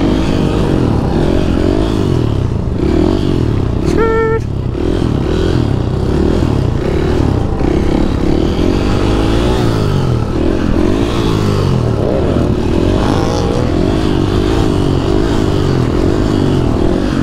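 Dirt bike engine running under throttle while wheeling, its pitch rising and falling over and over as the throttle is worked. A short steady beep sounds once, about four seconds in.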